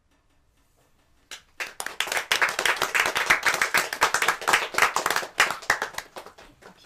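Audience applauding at the end of a biwa piece: the clapping breaks out about a second in, stays dense for a few seconds and thins out near the end.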